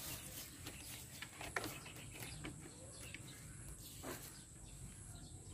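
Quiet handling of nylon mesh netting being worked and sewn by hand: faint scattered rustles and small clicks, one sharper scratch a little after a second and a half in.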